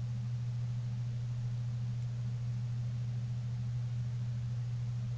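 Steady low electrical hum, one unchanging deep tone with a fainter overtone above it, running under the room sound.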